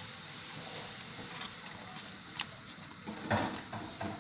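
Pancake batter sizzling in a hot, smoking frying pan as a steady hiss that slowly fades. A sharp click comes about halfway through, then two short knocks or scrapes near the end.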